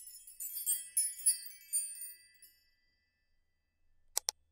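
High, tinkling chime notes, a quick flurry over about two seconds that rings away, followed by two short clicks near the end.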